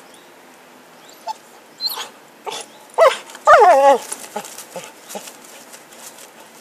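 Cocker spaniel whining: a few short cries, the loudest two about three seconds in, the last about half a second long and wavering down in pitch.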